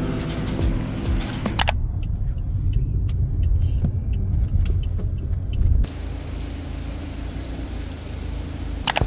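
Low vehicle rumble with the high end muffled, as of road noise from a car. About six seconds in it gives way to a lighter, steady street background, with a couple of sharp clicks near the end.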